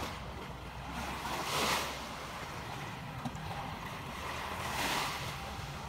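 Small sea waves washing onto a sandy beach, swelling twice, about a second and a half in and again near the end, over a low rumble of wind on the microphone.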